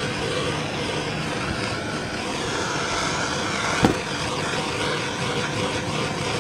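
Handheld kitchen butane blowtorch hissing steadily as its flame is played over a greased leather boot to warm the leather. One sharp click a little over halfway through.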